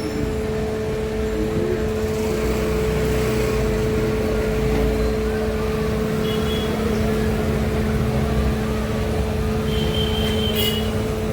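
A steady mechanical hum: a constant low drone over an even background noise, with a few brief high chirps partway through and near the end.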